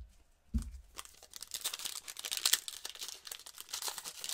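A trading-card pack wrapper being torn open and crinkled by hand, a dense run of fine crackling after a low thump about half a second in.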